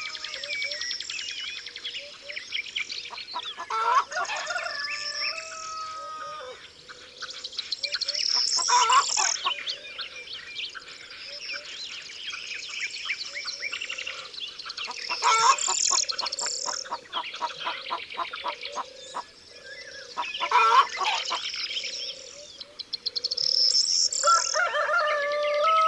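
Dawn chorus of wild songbirds singing densely, with quick repeated notes and trills, mixed with farmyard poultry calls. Longer, lower calls stand out about four seconds in and again near the end.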